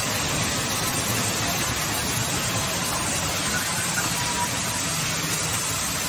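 Band sawmill running with a steady, unbroken machine noise and a low hum underneath.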